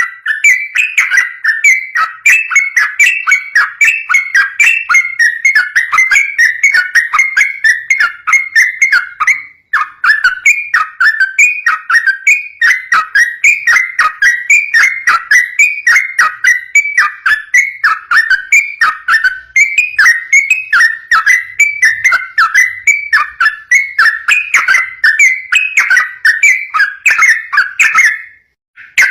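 Yellow-vented bulbul (trucukan) singing a long, fast run of repeated chattering notes, about three to four a second. It pauses briefly about ten seconds in and again near the end.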